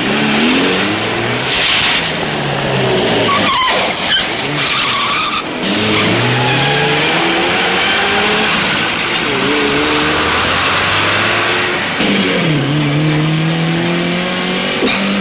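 Alfa Romeo Giulia's engine revving hard as the car accelerates away, its pitch climbing and falling back several times through the gear changes, with tyres squealing about two seconds in.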